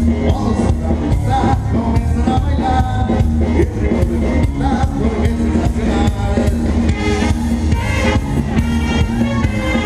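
Live band playing dance music with a singer and a steady beat.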